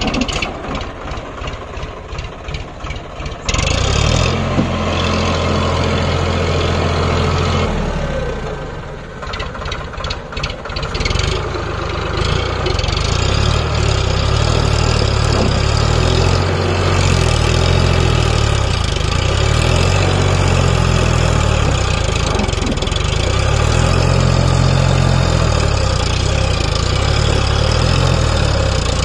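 Diesel tractor engine idling with a knocking beat, then revving up suddenly about three and a half seconds in and running hard under load. It drops back briefly to a pulsing idle around eight to eleven seconds in, then pulls steadily again with its pitch rising and falling.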